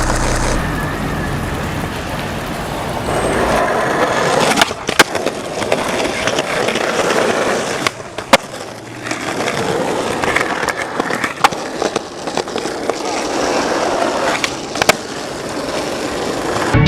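Skateboard wheels rolling over pavement, broken every few seconds by the sharp pop of a tail snapping and the clack of the board landing, about six times in all.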